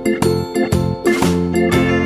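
Background music: an instrumental track with plucked guitar-like notes over a steady beat.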